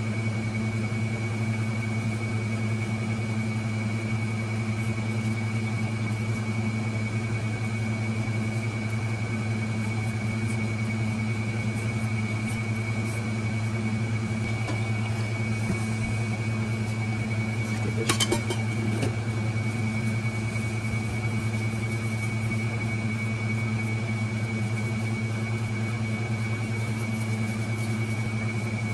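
Steady machine hum, low and even, with a thin high whine over it; a single sharp click about 18 seconds in.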